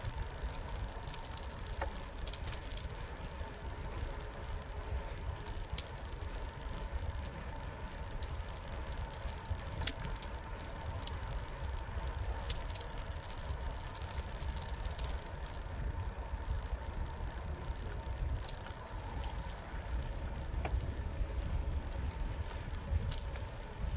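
Bicycle rolling along a concrete path: a steady low rumble of tyres and wind, with scattered light clicks and rattles from the bike.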